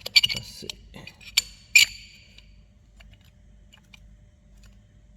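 Metal hand tools clinking on the engine, a handful of sharp metallic clinks in the first two seconds, while the balance shaft belt tensioner is snugged up and its bolt tightened. After that only a faint steady hum.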